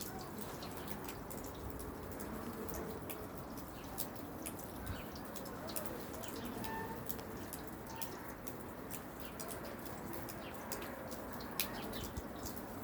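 Steady low background noise with many scattered sharp ticks and clicks, and a couple of faint short tones about seven seconds in; the siren is not yet sounding.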